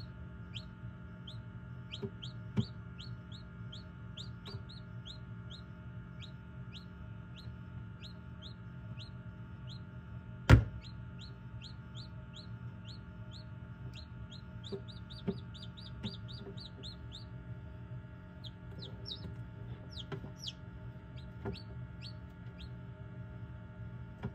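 Newly hatched chicks peeping inside an incubator: runs of short, high peeps, several a second, over the incubator's steady hum. A single sharp thump about ten seconds in is the loudest sound, with a few softer knocks around it.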